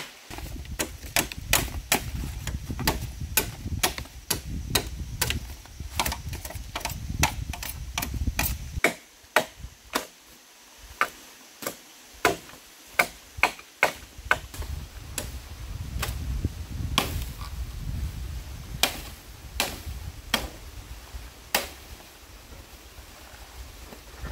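Machete chopping the leafy side branches off a cut bamboo pole: a long run of sharp, irregular strikes, about one or two a second.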